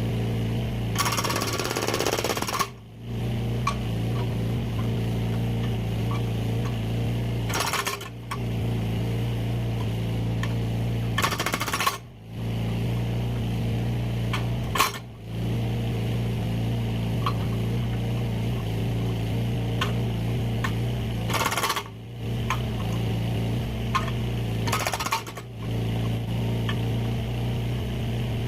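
Mini excavator's engine running steadily. About six times it is broken by a short, loud, noisy burst with a brief drop in level after it, and a few sharp clicks fall between the bursts.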